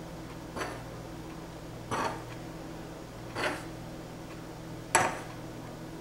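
Metal spoon clinking against the rim of a metal measuring cup four times, about every second and a half, as sifted flour is spooned in.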